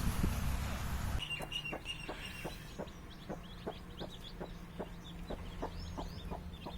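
Country hen clucking in a steady rhythm, about three clucks a second, with faint high peeps of chicks over it. A rush of noise fills the first second.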